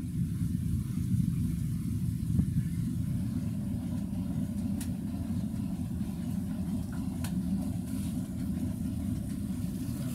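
Steady low rumble of the small steamship VIC96 running under way on the river.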